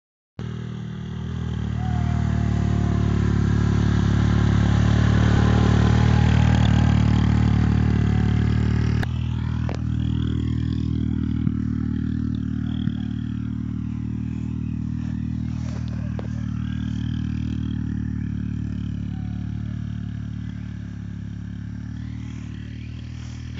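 Small engine of a child's quad bike (ATV) running at a steady speed, its hum holding one constant pitch, with a hiss over it that drops away suddenly about nine seconds in.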